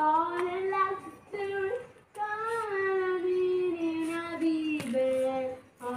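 A child singing alone, holding long notes in short phrases with brief pauses between them.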